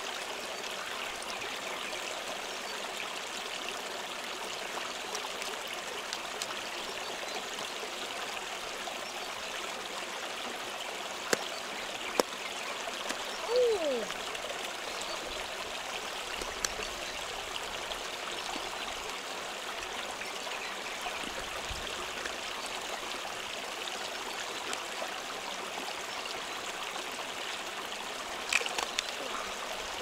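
Steady sound of a shallow stream running, with a few sharp clicks and a brief falling squeak about halfway through.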